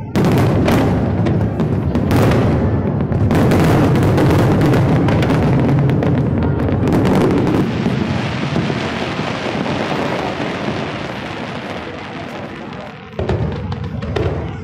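Aerial fireworks shells bursting in rapid succession, the cracks and bangs merging into one continuous rumble. The barrage thins out and fades over the last seconds, then fresh bursts start again about thirteen seconds in.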